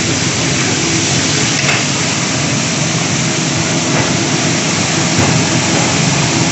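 Chapli kababs deep-frying in a wide pan of hot oil: a steady, loud sizzle over a low hum.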